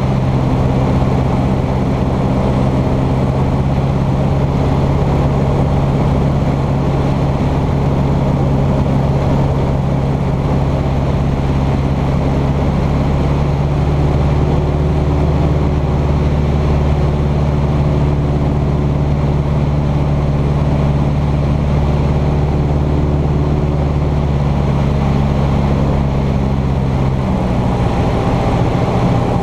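Cessna 150's four-cylinder Continental O-200 engine and propeller running steadily in flight, heard from inside the cabin. The engine note shifts slightly near the end.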